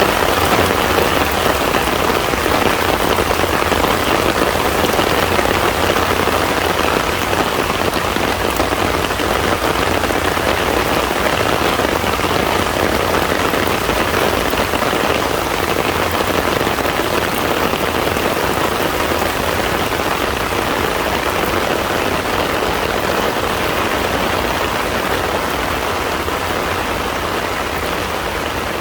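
Heavy rain falling steadily on a pond's surface, a dense, even hiss of countless drops, easing slightly in loudness over the last several seconds.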